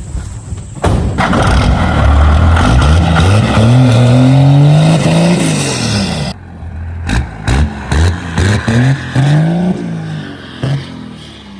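12-valve Cummins diesel engine accelerating, its pitch climbing, then dropping off sharply about six seconds in, followed by a run of short revs with a second brief climb.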